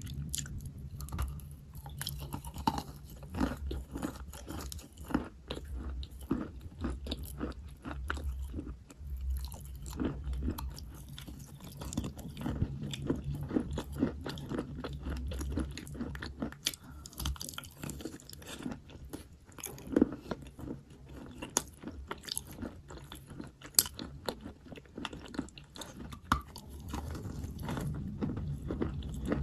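Close-up crunching and chewing of wet white chalk: dense, irregular crackles of chalk being bitten and ground between the teeth, with a few sharper snaps.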